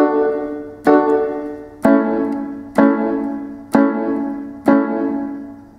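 Electronic keyboard on a piano sound playing block chords from A major and D major, one chord struck about every second, changing chord about two seconds in; the last chord rings and fades out near the end.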